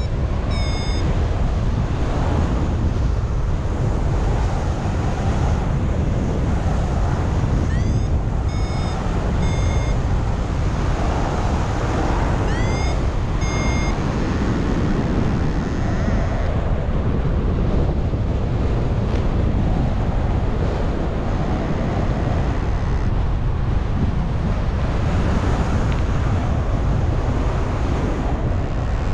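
Wind rushing steadily over the microphone in paraglider flight. A flight variometer beeps in short runs, with rising chirps, about eight and twelve seconds in: its signal of rising air.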